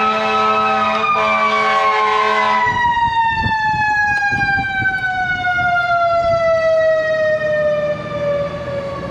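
A machine whines steadily, then cuts off about three seconds in and winds down, its pitch falling slowly over several seconds. It is loud.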